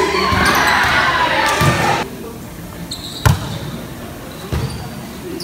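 Players' voices calling out, then about three seconds in the sharp slap of a hand striking a volleyball, likely a serve, followed a second later by a duller thud of the ball being played again.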